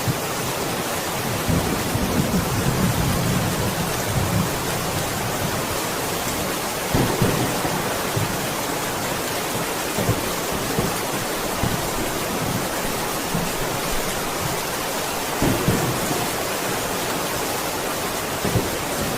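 Steady rain falling as an even hiss. Brief low rumbling thumps break in a few times: near the start, about seven seconds in, and again around fifteen and eighteen seconds in.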